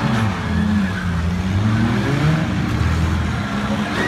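Engines of several battered race cars running together, their notes overlapping and rising and falling as they rev.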